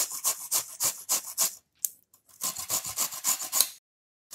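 Cauliflower floret grated on the fine side of a metal grater: quick rasping strokes, about five a second, stopping briefly twice.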